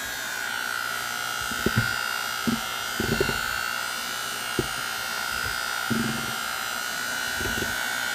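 Electric hand mixer running steadily, its beaters whisking cake batter, a steady high motor whine with a few brief knocks.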